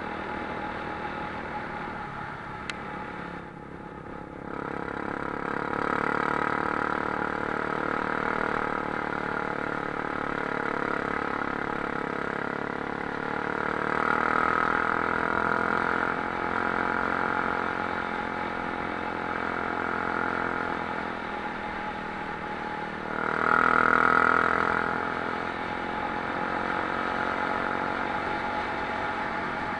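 Single motorcycle engine running under way on a dirt road, the throttle rising and easing. It drops off briefly about four seconds in, then comes back with louder surges, the strongest about two-thirds of the way through.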